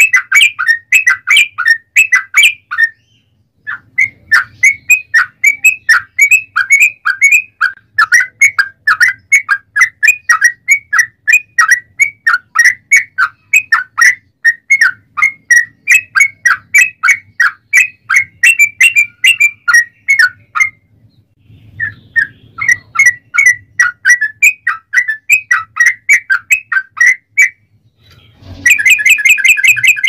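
Yellow-vented bulbul (trucukan) singing a long, rapid song of quick bubbling chirps. The song breaks briefly about three seconds in and again just after twenty seconds, and a harsher, noisier burst comes near the end.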